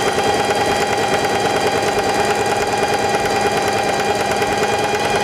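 Singer Heavy Duty 4411 sewing machine stitching at a steady full speed: the motor whines at one even pitch under a fast, even needle-stroke chatter, sewing a straight test stitch.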